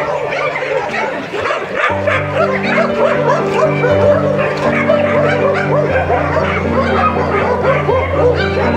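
Many dogs barking and yelping in their kennels, a dense overlapping chorus, over background music of slow, held chords that change every couple of seconds.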